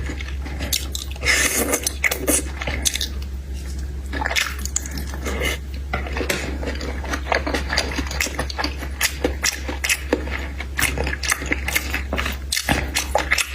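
A person chewing and biting seafood close to the microphone: a dense run of small wet clicks and crunches, over a steady low hum.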